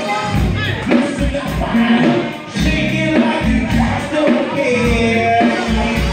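Live band playing a funk groove on a full drum kit, the kick drum landing about twice a second, with a singing voice over the band.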